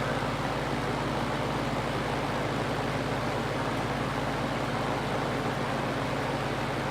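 Mid-1960s Fasco Model 2077 20-inch box fan running steadily in reverse: a steady rush of air from blades built for intake, over a low motor hum.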